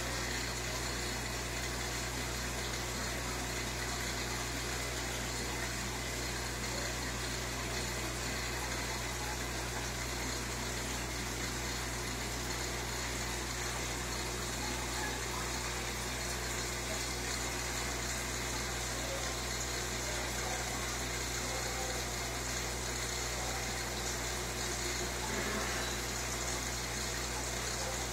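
Aquarium filter running: a steady electrical hum with a constant wash of moving water.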